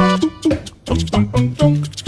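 Upbeat background music: a run of short, quick notes over a bouncing bass line.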